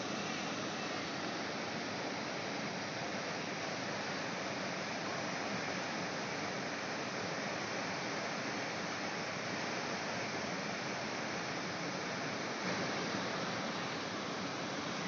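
Steady rushing of water released from the Lam Takhong Dam into the Lam Takhong river.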